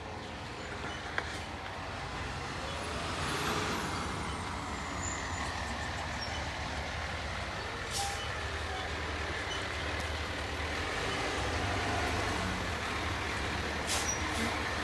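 Heavy rescue fire truck's diesel engine running at a steady low idle, with a swell of noise about three seconds in and a few faint clicks.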